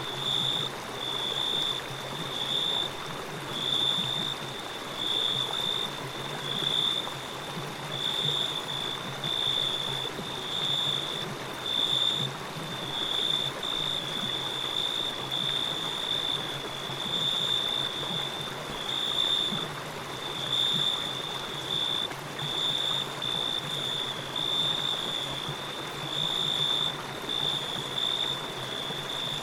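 Steady rushing of a flowing stream, with a high-pitched chirp pulsing about once a second over it.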